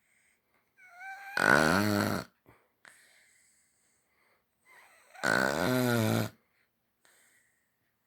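German Shepherd puppy snoring: two loud, buzzing snores about four seconds apart, each led in by a faint whistling breath.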